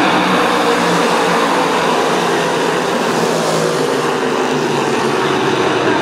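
A pack of dirt-track modified race cars racing on the oval, their V8 engines running together in a loud, steady drone.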